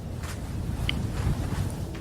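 Strong wind used as a sleep-sound backdrop: a steady, low, rumbling rush of noise.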